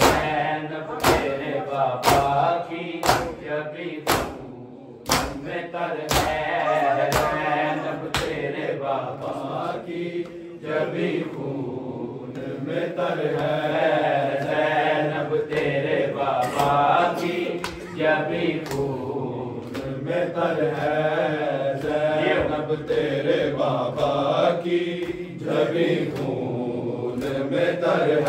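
Men's voices chanting a Punjabi nauha (mourning lament), with rhythmic matam: open hands slapping bare chests in time, about once a second.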